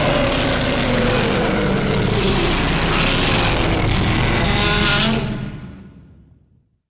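A Godzilla-style monster roar made by mixing film Godzilla roars with stock dinosaur roars. It is one long, loud roar whose pitch slowly falls, and it fades out about five seconds in.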